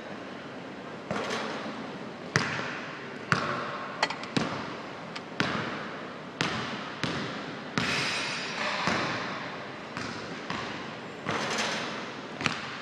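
A basketball bouncing on a hardwood gym floor: sharp thuds about once a second, each echoing in the large hall.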